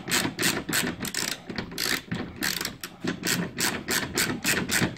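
Hand ratchet wrench clicking as a 10 mm bolt is backed out with short back-and-forth strokes, a steady run of about three or four sharp clicks a second.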